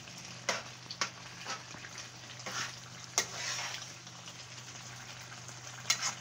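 Spinach and minced meat bubbling and sizzling in the water the spinach has released, in a metal pot, with a steady low hum underneath. A spoon stirs the mixture, clicking against the pot a few times in the first half.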